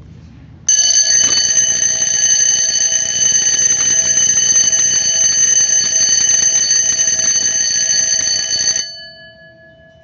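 Amseco electric fire alarm bell ringing loudly and continuously, its striker hammering the red dome gong. It starts abruptly about a second in and stops near the end, the gong's ring dying away after it.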